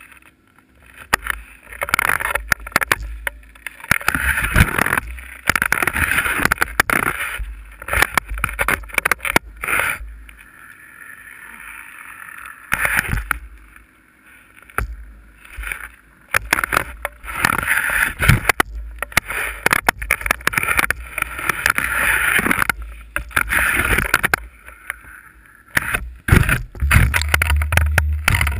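A ski sliding and scraping over packed snow, heard through a camera mounted on the ski itself, with harsh swishing and clattering in uneven bursts every second or two. A steady low hum comes in near the end.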